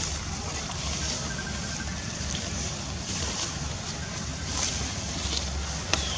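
Wind buffeting the microphone: a steady low rumble under a hiss, with a few faint ticks.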